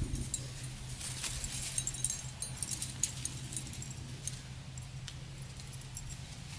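Small metal carabiners clinking and jangling lightly as they are handled and clipped.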